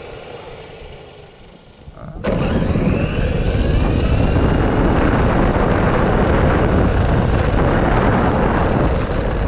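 A 2WD brushed 1/10-scale RC car on a full-throttle speed run on a 2S LiPo battery. About two seconds in, a loud, steady rush of motor, drivetrain and rolling noise starts suddenly, with a faint rising whine as it speeds up.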